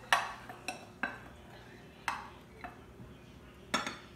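Metal measuring cup scooping powdered sugar from a ceramic bowl, clinking and scraping against it several times. Near the end it knocks sharply on a glass measuring jug as the sugar is tipped in.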